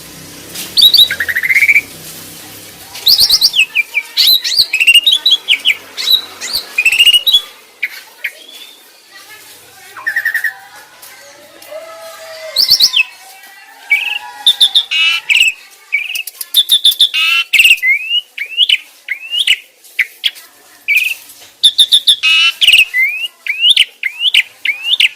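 Starling song: a loud, varied run of chirps, whistles, rising sweeps and fast trills, coming in bursts with short gaps.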